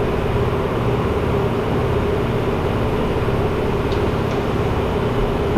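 A steady, loud mechanical hum with a constant mid-pitched tone over a low rumble, with two faint light clicks about four seconds in.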